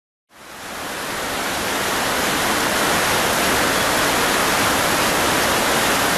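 Steady, loud rush of water, fading in over the first second and then holding even.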